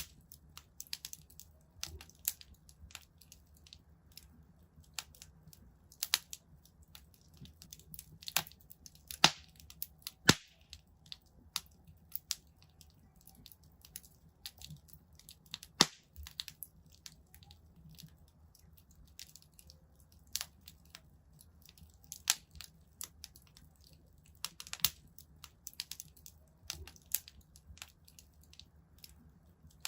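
Wood fire in a fireplace crackling, with irregular sharp snaps and pops, a few of them louder, over a faint low rumble.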